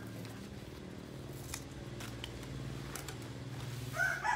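Fresh banana leaves being handled and smoothed, with a few crisp clicks and crackles, over a steady low hum. About four seconds in, a rooster starts crowing loudly.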